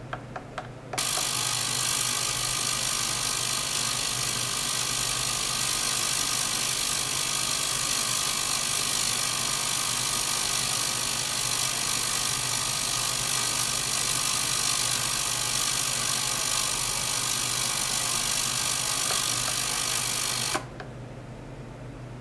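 Small ultrasonic cleaning bath running: a loud, steady hiss and buzz with faint steady tones in it. It starts after a few small clicks about a second in and cuts off suddenly near the end.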